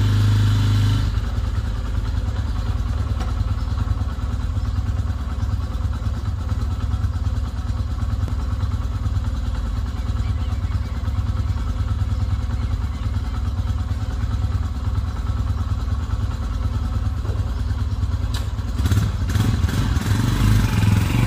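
Modified Honda XR250 Tornado motorcycle's single-cylinder engine idling steadily, then revved up unevenly near the end.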